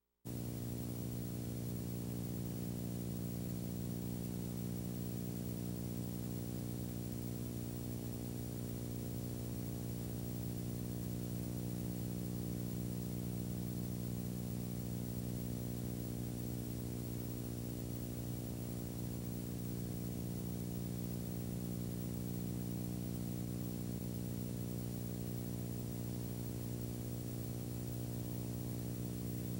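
Steady electrical hum with a stack of evenly spaced overtones, unchanging throughout, over a faint hiss. It starts abruptly just after the beginning.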